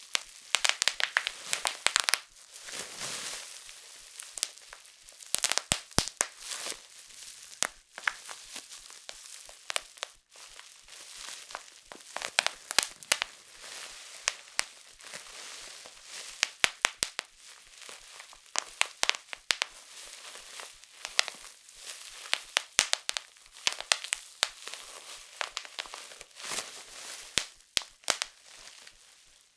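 Plastic bubble wrap being squeezed and handled: clusters of sharp pops as bubbles burst, over a steady crinkling rustle of the plastic sheet.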